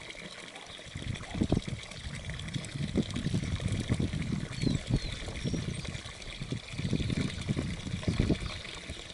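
Steady trickling water, joined from about a second in until near the end by irregular low rumbling bumps.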